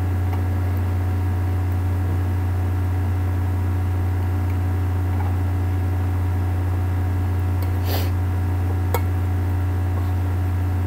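A steady low hum throughout, with a metal spoon clicking against the bowl about eight seconds in and again more faintly a second later.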